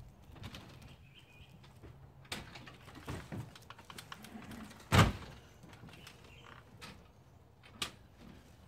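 A storm door opening with a click, footsteps on a wooden porch, and the door banging shut about five seconds in, the loudest sound; a lighter knock near the end.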